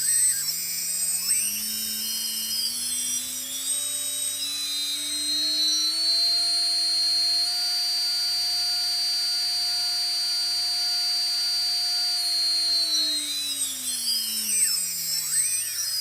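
T-Motor 2206 2000KV brushless motor spinning with no propeller on, driven by a 20 A speed controller. Its whine rises in pitch over about seven seconds as the speed is ramped up, holds high and steady for several seconds, then falls away near the end as the motor slows. High-pitched electronic whistles glide up and down as the speed changes.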